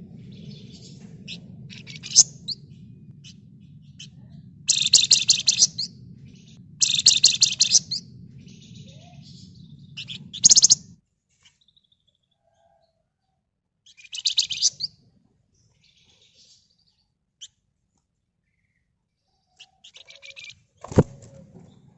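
Flamboyan songbird singing in dense, rapid, buzzy chattering trills of about a second each, five bursts with softer high chirps between them. A low hum underneath cuts off about halfway through, and a single knock sounds near the end.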